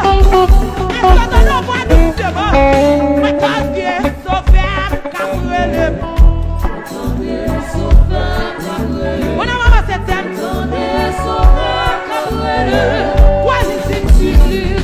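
Gospel music: sung vocals over a band with a steady beat and bass.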